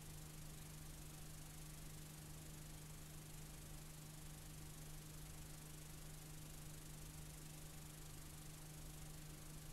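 Faint steady hiss with a low steady hum from a blank stretch of videotape playing back.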